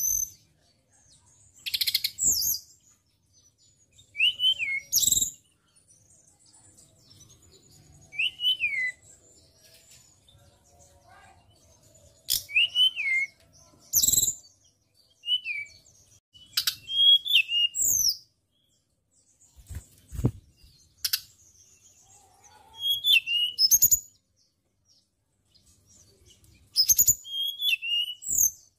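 Hill blue flycatcher singing in short bursts of quick, high whistled notes with downward slurs, a phrase every second or two with short pauses between. A few sharp knocks are mixed in.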